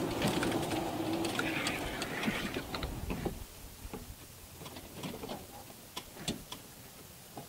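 Rear-wheel-drive electric golf cart driving over pine needles and sand, with a faint steady motor whine and tyre crunch that fade out after about three seconds. After that come scattered faint clicks and crackles.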